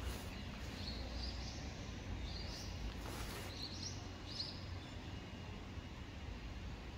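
Outdoor ambience: a steady low rumble with a few short, high bird chirps, four or five of them in the first half.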